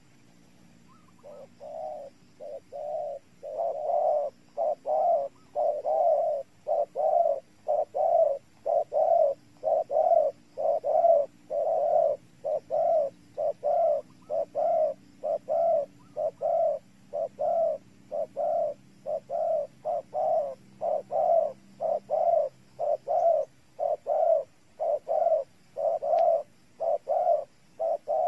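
Spotted dove cooing: a steady series of short coos, about two a second, starting about a second in and growing louder over the next few seconds.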